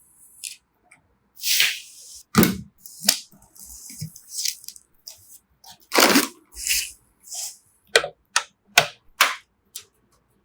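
Computer parts being handled: irregular clicks, knocks and rustling, ending with four sharp clicks in quick succession.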